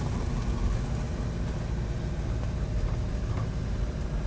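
A car driving at a steady pace: a low, even rumble of engine and road noise heard from inside the car.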